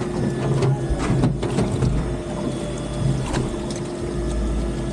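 Boat engine running steadily, with the mechanical clicking and whirring of a fishing reel being worked.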